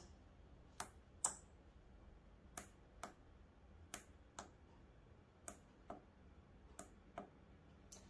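Faint, sharp clicks in five pairs, each pair about half a second apart, as the push buttons on a breadboard are pressed to switch a small relay module on and off.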